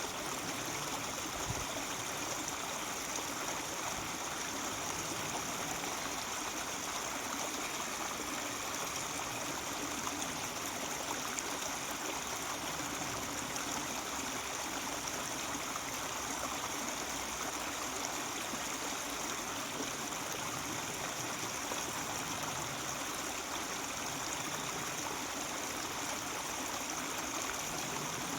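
Mountain stream babbling, a steady, even rush of running water.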